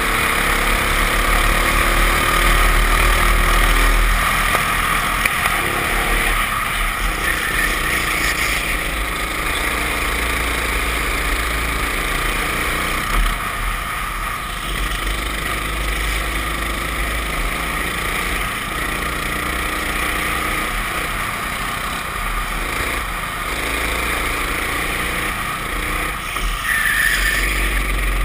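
Racing go-kart engine heard from an onboard camera, its pitch rising and falling as the kart accelerates and lifts through the corners, over a steady low rumble.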